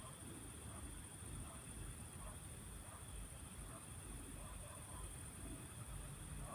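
Faint field ambience at dusk: crickets trill steadily, over soft short calls that repeat about twice a second and a low rumble underneath.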